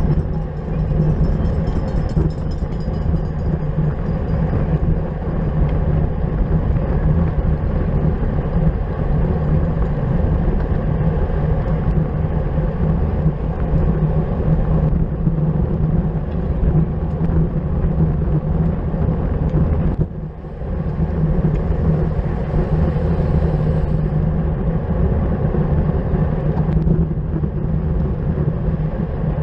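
Steady rush of wind and tyre noise from a road bicycle ridden at race speed, dipping briefly about two-thirds of the way through.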